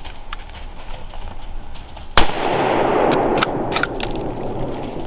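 A single hunting rifle shot about two seconds in, fired at a whitetail buck. It is followed by a steady rushing noise and a few sharp clicks.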